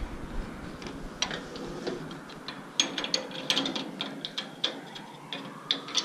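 Irregular clicks and light knocks of a Whitco sliding screen door lock's metal and plastic parts being handled and pushed into place on the door edge.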